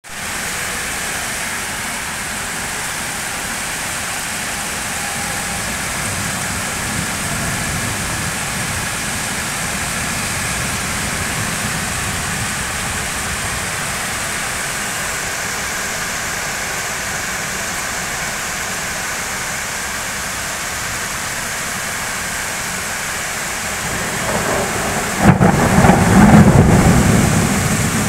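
Heavy rain falling steadily on a city street, a dense even hiss. Near the end a loud, deep thunder clap and rumble comes in over it for about three seconds, the loudest sound.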